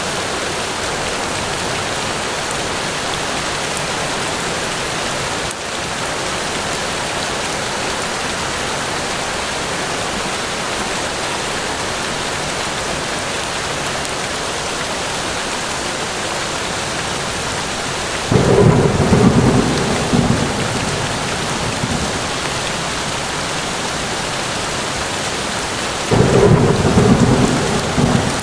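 Steady rain falling on a forest, an even hiss throughout. Two deep rolls of thunder, each about two seconds long, break in past the middle and again near the end, and are the loudest sounds.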